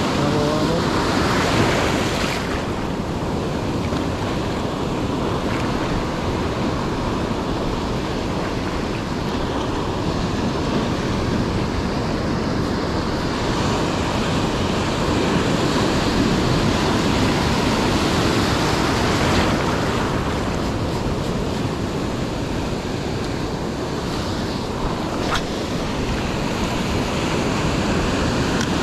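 Ocean surf breaking and washing up a beach, with wind on the microphone. The surf swells louder twice, at the start and again around the middle, and there is a single brief click near the end.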